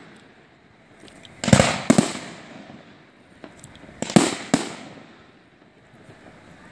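Fireworks exploding: two pairs of sharp bangs, the first about a second and a half in and the second about four seconds in, each bang trailing off in a rolling echo.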